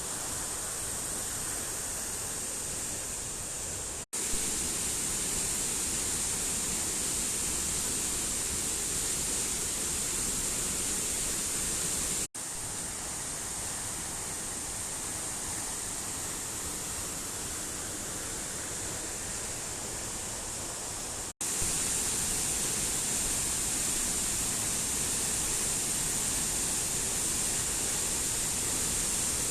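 Waterfall's steady rush of falling water, cutting out for an instant three times where the clips are joined.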